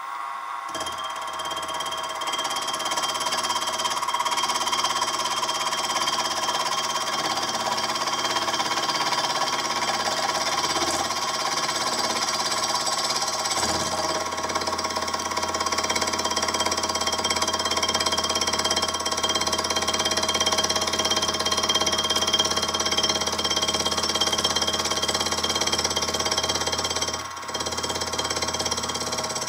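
Benchtop milling machine starting up about a second in, then running steadily with a motor whine and hum while an end mill skims a few thousandths off the bottom of a steel pedestal's feet. It dips briefly near the end.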